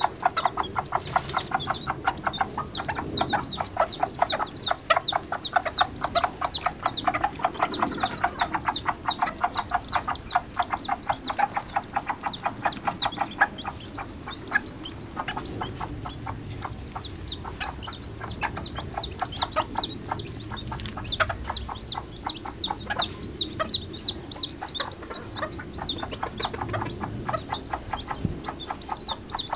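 Serama bantam chicks peeping in long, fast runs of short, high, falling notes, with hens clucking low underneath; the peeping briefly thins out about halfway through.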